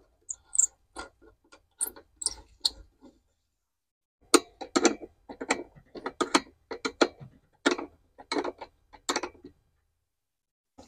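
Ratcheting wrench clicking in quick runs of short strokes as a nut is turned, with a pause of about a second near three seconds in.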